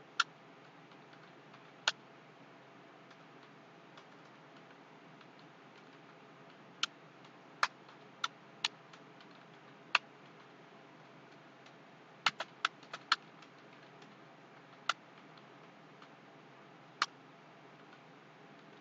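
Computer keyboard keys clicking sparsely, a dozen or so single keystrokes and short quick runs with pauses of several seconds between, over a low steady hiss.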